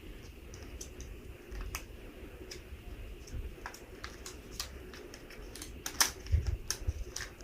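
Small plastic parts of a toy pool table game being handled and taken out of the package: scattered light clicks and taps, with a cluster of louder knocks about six seconds in.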